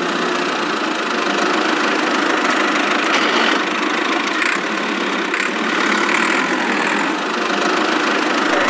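A small motor running steadily, an even mechanical hum with no deep bass.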